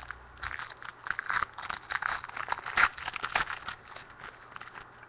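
Wrapper of a pack of football trading cards being torn open and crinkled by hand: a run of irregular crackles.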